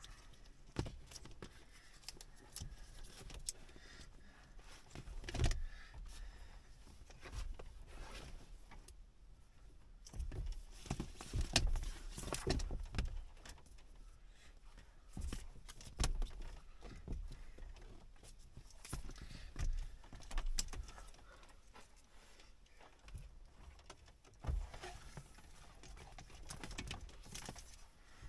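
Bundled insulated wires being handled and pulled out: irregular rustling with scattered clicks and knocks from the leads and their connectors, a few sharper knocks about five seconds in and about twelve seconds in.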